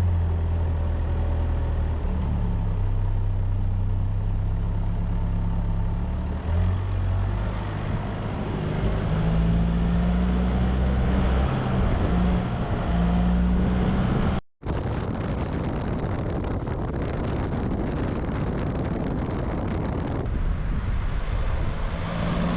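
Car engine running steadily with tyre and road noise while driving, a low hum under a rushing haze. It cuts out for a moment about two-thirds of the way through.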